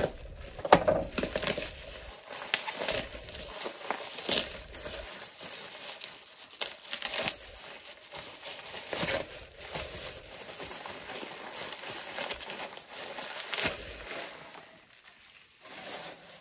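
Plastic bubble wrap being handled and pulled open: irregular crinkling and crackling with some sharper cracks, getting quieter near the end.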